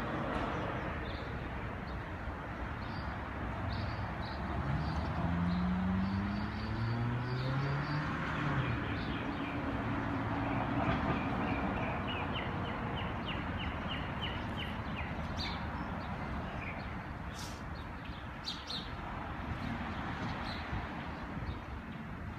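Outdoor traffic noise with a large vehicle passing, its low engine tone rising and then falling about a quarter of the way through; birds chirp now and then, with a quick run of chirps around the middle.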